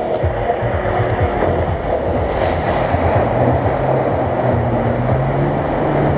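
An off-road SUV's engine running hard as the vehicle wades through a deep pit of mud and water, with muddy water surging and splashing around it. The engine pitch rises over the last few seconds as the driver pushes on.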